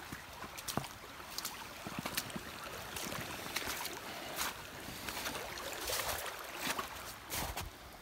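Flood-swollen stream rushing steadily, with irregular crunching footsteps in snow.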